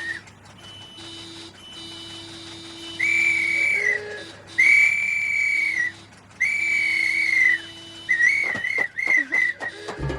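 Whistling: three long, steady high notes of about a second each, then a quick run of short, wavering notes near the end.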